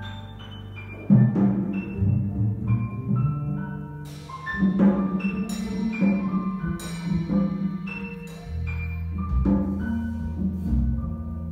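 Jazz piano trio playing: grand piano, plucked double bass and drum kit, with cymbal strikes several times over the piano line.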